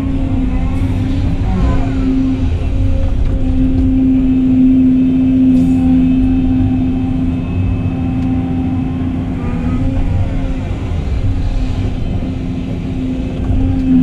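Volvo excavator's diesel engine and hydraulics running steadily as heard inside the cab while the machine swings, digs and loads sand, the pitch rising and falling twice, near the start and about ten seconds in.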